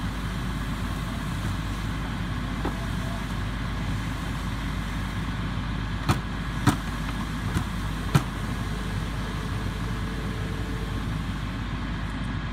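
Steady engine rumble of fire apparatus running to supply the hose line, with four sharp clicks or knocks between about six and eight seconds in.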